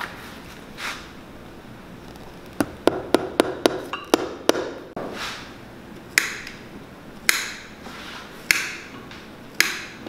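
A shoemaker's hammer driving small wooden pegs into a leather boot sole to peg it on. A quick run of light taps, then four harder, evenly spaced blows about a second apart.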